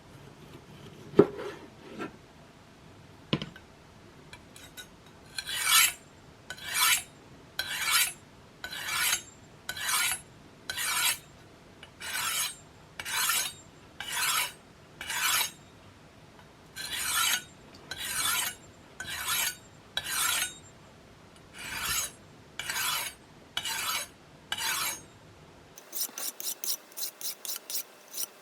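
Knife blade being drawn across a double-sided pocket diamond sharpening plate, steady rasping strokes about one a second, after a few light knocks of handling. Near the end the strokes turn short and quick, several a second.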